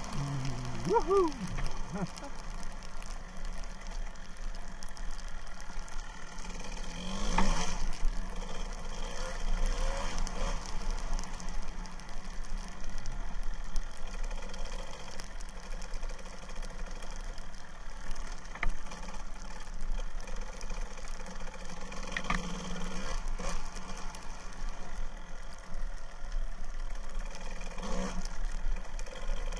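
1999 Kawasaki KDX220R's two-stroke single-cylinder engine running, picking up revs briefly a few times. It is heard through a sealed camera case.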